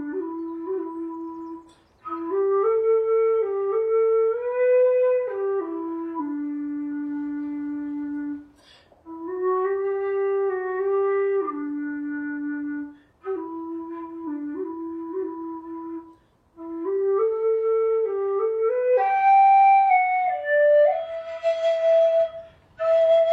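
A slow air played on a whistle: a single melody line in short phrases with brief pauses for breath between them, climbing to higher notes near the end.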